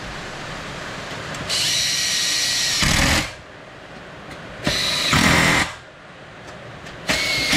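Handheld power drill-driver running in three short bursts, driving in the fasteners of a part being fitted onto a Husqvarna K1270 concrete saw engine. The first burst lasts under two seconds and the second about a second. The third starts near the end.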